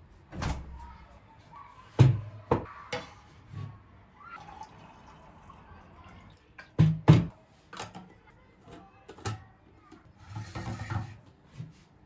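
Kitchen handling sounds: a fridge door and a plastic water-filter pitcher knocking and clunking, with water poured from the pitcher into a plastic bottle in a soft stream for a couple of seconds before the pitcher is set down with two sharp knocks.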